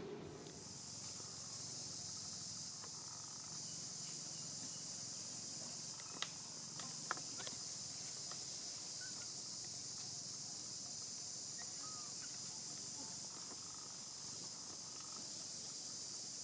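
A steady, high-pitched drone of insects that sets in about half a second in and holds unchanged. Two sharp clicks about six and seven seconds in are the loudest moments.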